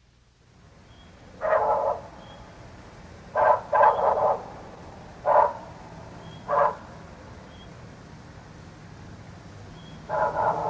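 Short animal calls, about six, a few of them in quick succession, over steady record hiss and a low hum, with faint high chirps recurring in the background.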